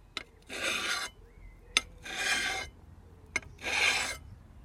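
A whetstone stroked along the edge of a billhook blade while sharpening it. There are three scraping strokes about a second and a half apart, and each is preceded by a short sharp click.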